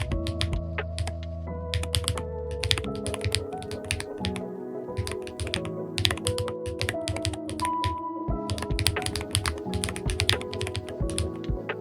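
Typing on a Wooting 80HE keyboard fitted with Gateron Jade Delta Dark magnetic (Hall-effect) switches and PBT Cherry-profile keycaps: a quick, irregular run of keystroke clacks, with background music under it.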